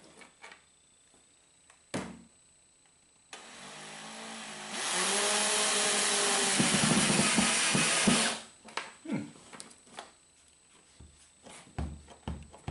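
Power drill running: a softer start for about a second and a half, then about three and a half seconds at full speed, its pitch sagging slightly under load before it stops sharply. It is driving the fastener that holds the nylon strap latch to the cooler lid. A few light clicks and knocks come before and after it.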